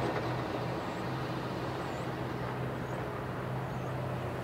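Road traffic at a railway level crossing: a steady low engine hum with a car driving over the tracks near the end.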